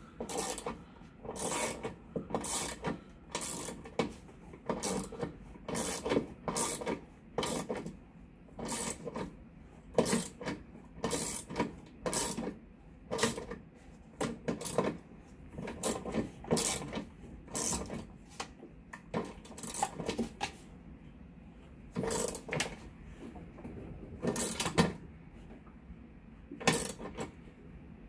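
Ratchet wrench clicking as it is swung back and forth, turning the fastener at the centre of a top-load washer's wash basket: a short burst of metallic ratchet clicks a little more often than once a second, with a couple of brief pauses.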